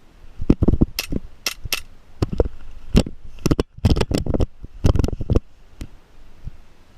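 Airsoft gun firing a quick string of single shots: about twenty sharp cracks at uneven spacing over roughly five seconds.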